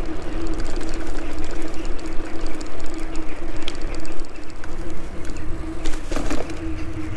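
Electric bike riding over cobblestones: the tyres rumble and the frame rattles with many small clicks, over a steady motor whine.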